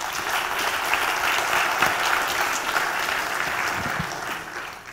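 Audience applauding: a dense, even clapping that starts at once and dies away near the end.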